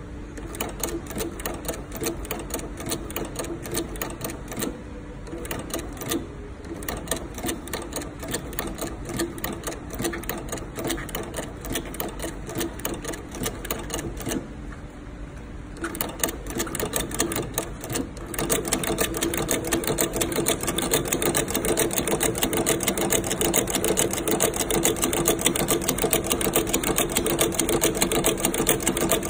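Industrial shoe-sole stitching machine with a rotary hook sewing through a shoe sole: a rapid, even clatter of needle strokes. It stops briefly twice and runs louder in the last third.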